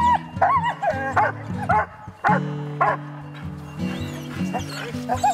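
A team of harnessed Alaskan husky sled dogs yelping and barking, a string of short calls that bend up and down in pitch, over background music with sustained low chords.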